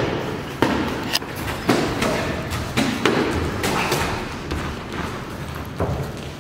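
Boxing gloves landing punches in sparring, a run of dull thuds about half a second to a second apart, about eight in all.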